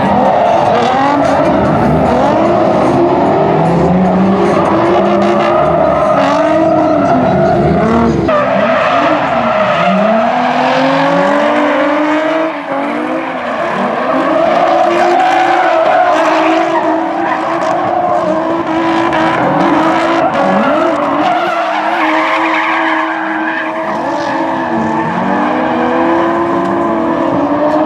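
Several drift cars, Nissan 350Zs among them, sliding in tandem: their engines rev up and down, overlapping one another, while their tyres skid and squeal.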